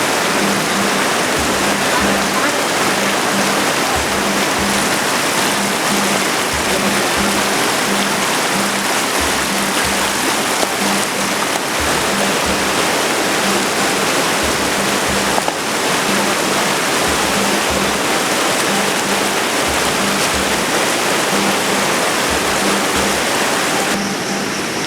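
Mountain river water rushing loudly and steadily over rocks.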